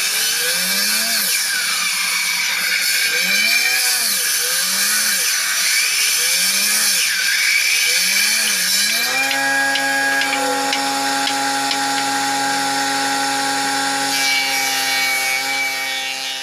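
Electric jointer-planer of a combination woodworking machine cutting a log fed across its bed: a loud cutting noise over a motor tone that rises and falls in pitch about every second and a bit. About halfway through the cutting stops and the machine runs on unloaded with a steady tone.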